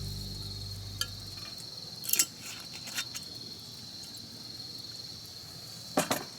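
Crickets chirring steadily in a high, even band as background music fades out in the first second or so. A few light clicks and clinks break in, the loudest near the end.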